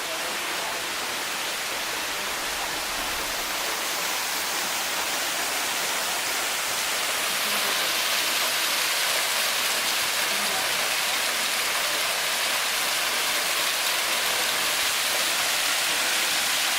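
Waterfall rushing steadily, growing a little louder about halfway through.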